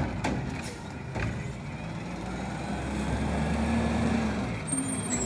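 Garbage truck's diesel engine running at the curb and revving up as it works its hydraulics to lift and empty a wheeled trash cart, with a couple of clanks in the first second or so.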